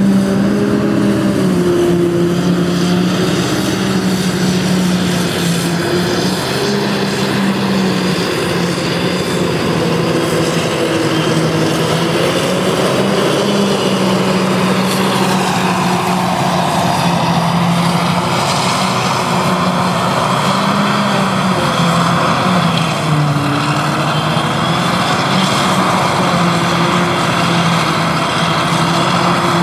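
Engines of a Claas Jaguar 870 forage harvester and the Valtra T131 tractor pulling the silage trailer alongside it, running hard under load as a steady, loud drone that wavers slightly in pitch. About halfway through, a broad rushing hiss joins the drone.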